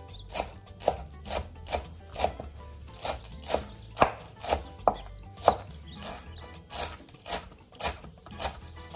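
Chef's knife chopping fresh parsley on a bamboo cutting board: a steady run of sharp knocks of the blade on the wood, about two a second.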